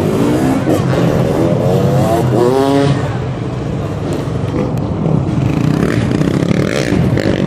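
Freestyle motocross bikes revving in rising sweeps, two strong ones in the first three seconds, over a steady low engine drone.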